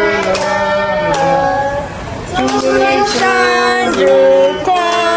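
A group of adults and children singing a birthday song together, holding each note for about a second, with a few hand claps.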